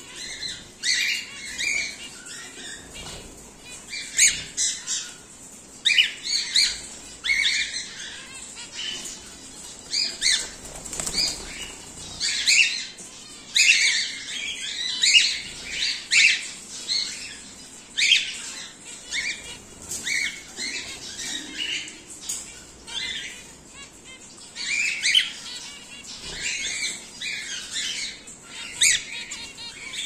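Caged cockatiels and zebra finches calling: many short, irregular chirps and squawks one after another, with wings flapping as birds flutter about the cage.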